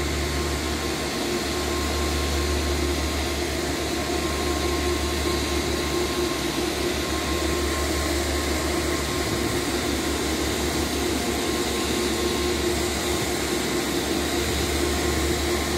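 Diesel locomotive engine running steadily while the train stands at the platform: a constant low drone with a faint steady whine.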